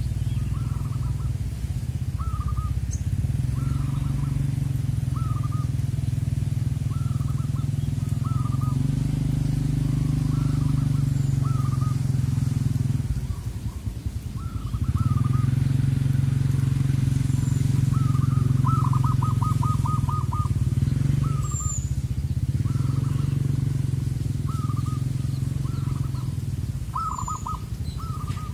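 Zebra doves (perkutut) cooing: a short coo about once a second, with a fast rattling run of notes about two-thirds of the way in and again near the end. Under them runs a steady low engine drone, louder than the birds, that dips briefly about halfway through.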